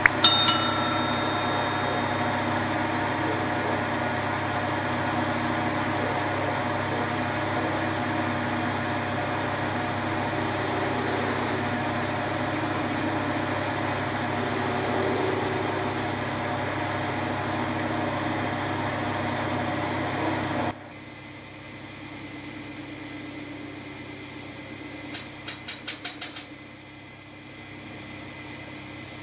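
Motor of a homemade wood lathe running steadily while a wooden plate spins and is sanded with a hand-held sanding pad, opening with a short metallic clink. About 21 s in, the sound drops abruptly to a quieter hum, with a brief run of clicks a few seconds later.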